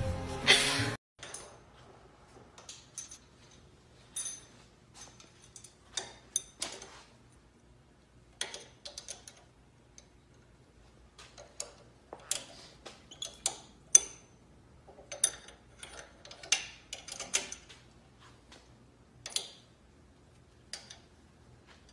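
Music cuts off abruptly about a second in. Then irregular light metallic clicks and taps, in small clusters with quiet gaps, as a monkey handles fittings and parts of a car engine.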